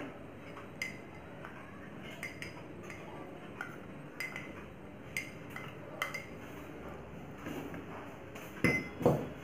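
Steel spoon clinking against glass bowls as chopped peanuts are knocked out of a small glass bowl into a bowl of chickpea mixture: a string of short, scattered clinks with a brief ring, then two heavier knocks near the end.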